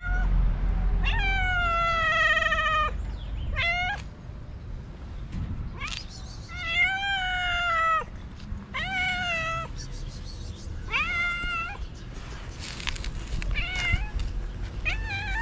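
A stray cat meowing repeatedly at close range, about eight meows, two of them long and drawn out and the rest short, as it asks for food.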